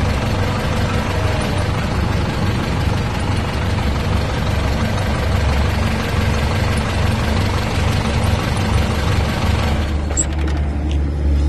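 Isuzu diesel truck engine idling steadily with a low rumble. About ten seconds in the higher part of the sound drops away while the low rumble continues.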